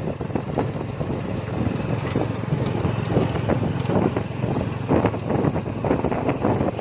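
Engine of an open-sided passenger vehicle running steadily as it drives along a road, with wind buffeting the microphone and scattered small knocks from the ride.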